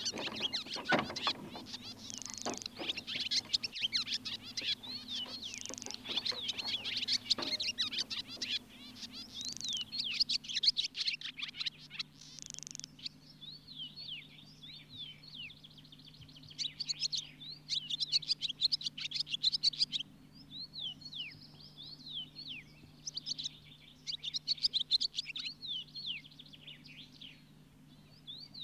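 Many small birds chirping and twittering in quick, overlapping calls, busiest in the first half. Under them is a faint steady low hum, and a few soft knocks come in the first several seconds.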